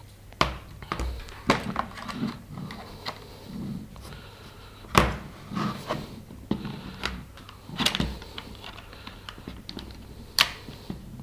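Hard plastic clicks and knocks as a 3D-printed tablet adapter is fitted onto a drone remote controller and a tablet is handled against the tabletop. Scattered light clicks, with a few sharper knocks through the middle and near the end.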